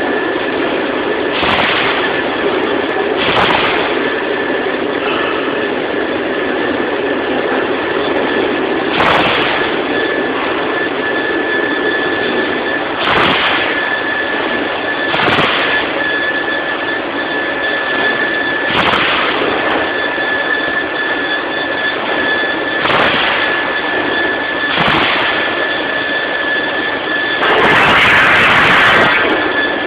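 PETRA DC300A dual-column band saw blade cutting through a 100 mm stainless steel 304 bar: a steady cutting noise with a high, steady squeal, brief louder rasps every few seconds, and a longer, louder rasp lasting about two seconds near the end.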